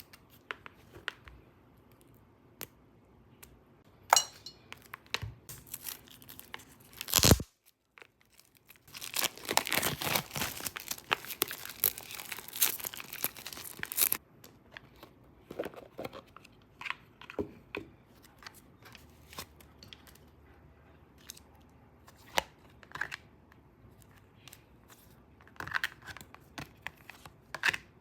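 Handling and unwrapping of an oracle card deck: scattered taps and clicks, a sharp snap about seven seconds in, then about five seconds of tearing and crinkling of the wrapping, followed by more scattered taps as the box and cards are handled.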